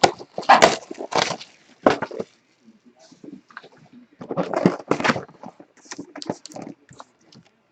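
A cardboard trading-card box being handled and opened: irregular rustling, scraping and tearing of cardboard, with two louder bursts, about half a second in and about four and a half seconds in.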